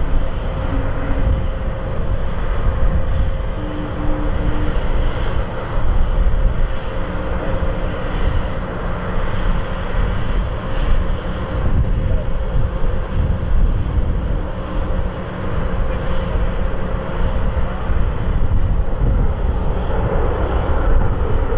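Twin-turbofan Gulfstream G550 business jet landing and rolling out along the runway, heard at a distance: a steady jet rumble with a faint steady whine, with wind buffeting the microphone.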